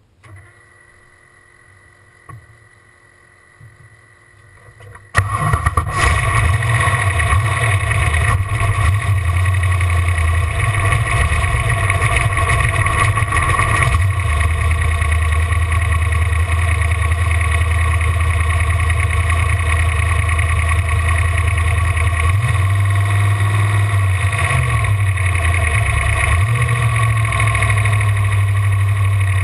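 Ford inboard engine of a V-drive boat running loud and steady with a deep low note. It comes in abruptly about five seconds in, and its pitch shifts a little near the end.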